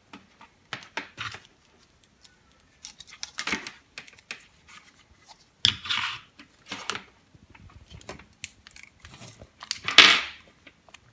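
Bench handling noises: an LED light's circuit board, a soldering iron's cord and a spool of solder wire being moved about on a wooden desk. They come as a string of short, irregular scrapes and rustles, the loudest about ten seconds in.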